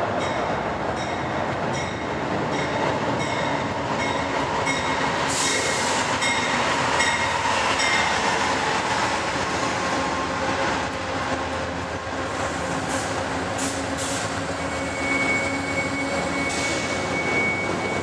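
Amtrak passenger train passing: the diesel locomotive and then its passenger cars run by, the wheels clicking over rail joints in a steady rhythm. A high, steady wheel squeal sets in near the end.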